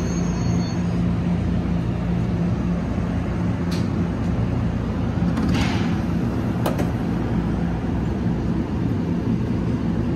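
NJ Transit Multilevel commuter train standing at a station platform, a steady low hum throughout, with two sharp clicks and a short hiss a little past halfway.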